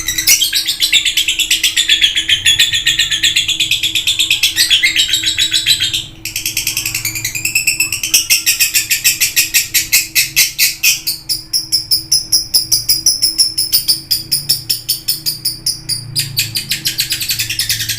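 Lovebird in full, nonstop song ("gacor"): a long unbroken chatter of rapid high-pitched notes. It breaks off briefly about six seconds in, runs on as a fast even trill, and then shifts higher.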